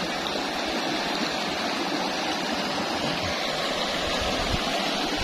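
Shallow river water rushing over rocks in a riffle, a steady rushing noise, with a few soft low thumps in the second half.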